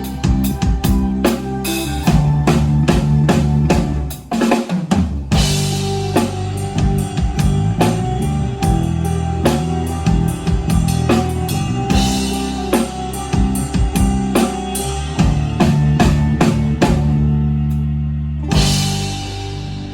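Live band playing an instrumental passage: drum kit with bass drum and snare hits driving the beat over bass and guitar. The beat drops out briefly about four seconds in, and the passage closes near the end on a crash that rings out.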